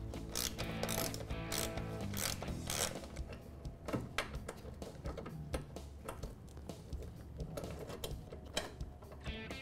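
Socket ratchet clicking in runs as a 7/16 socket backs out the bolts holding a golf cart's seat back.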